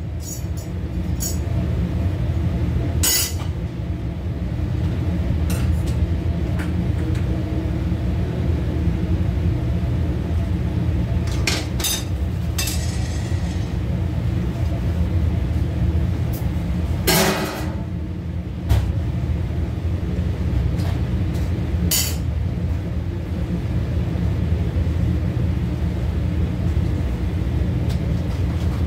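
Steady low machine hum with scattered clinks and knocks of metal or dishes, the strongest a little past the middle.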